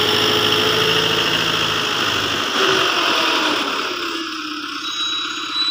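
Engine of silage-making farm machinery running steadily, then slowing with a falling pitch and quietening about four seconds in.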